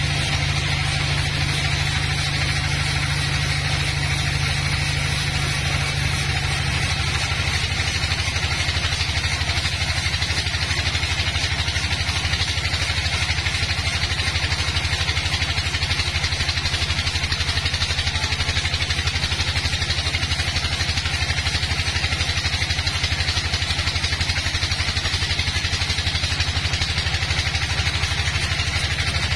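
Horizontal band sawmill running steadily, its blade sawing lengthwise through a dry, rotten log, with a constant low hum under a steady cutting hiss.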